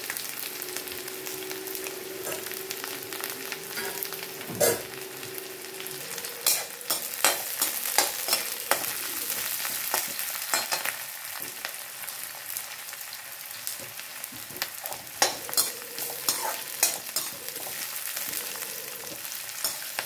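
Sliced onions sizzling steadily in hot mustard oil in a metal kadhai. From about five seconds in, a slotted metal spatula stirs them, scraping and clinking against the pan.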